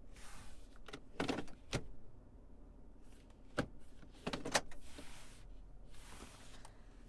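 A handful of sharp clicks and knocks, in two clusters about three seconds apart, with short swishing noises before and after them.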